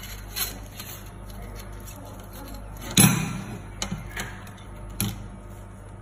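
Flat metal bars being set down and pushed into place on a perforated steel welding table. A few sharp clanks and taps come over a low steady hum, the loudest about three seconds in.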